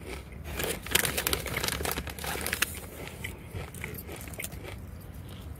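Hand rummaging in an open foil bag of potato chips: the bag crinkles and the chips rustle and crackle. The crackling is busiest from about a second in and thins out after about three seconds.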